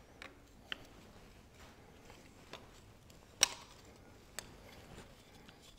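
A handful of scattered light metallic clicks and taps from a hand tool working on the McCormick Deering engine's rocker gear, the sharpest about three and a half seconds in.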